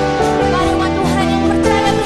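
Background music: sustained chords with a steady pulse, guitar-like plucked notes and a faint singing voice.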